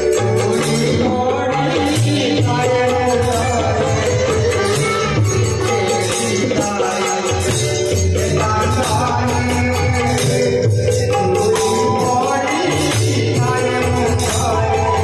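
Bhajan: a man singing a devotional melody, accompanied by the metal jingles of a hand-shaken plastic tambourine and a dholak drum played by hand.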